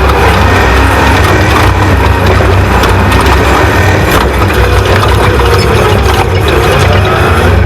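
Off-road race truck's engine running hard over rough ground, its pitch rising and falling, under a dense wash of road noise and frequent knocks and rattles.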